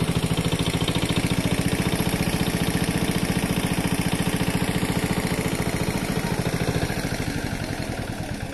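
Small engine running steadily at a fast, even beat, the kind of pump engine used to drain a pond through a pipe; it gets quieter near the end.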